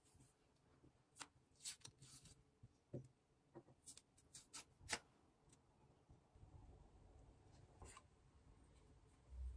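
Faint clicks and taps of skincare bottles and jars being picked up and handled close to the microphone: a scatter of short, sharp ticks in the first half, then a soft low rumble and a dull thump near the end.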